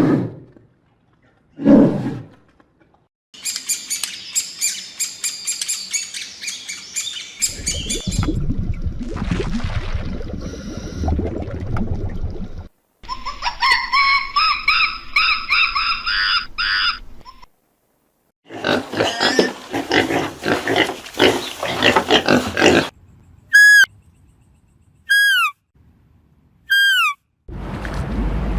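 A string of different wild animal calls, one clip after another. Two short low calls come at the start, then a high, dense chorus, low rumbling noise, and a run of rising pitched calls. Three short falling whistles come near the end.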